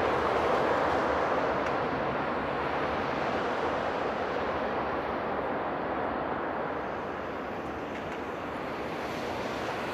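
Boeing 767-300ER freighter's jet engines giving a steady rush as the aircraft rolls out after touchdown, the noise easing off gradually.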